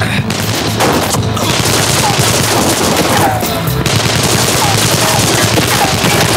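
Sustained, rapid gunfire from a rifle and handguns exchanged in a shootout, shots running together with no pause.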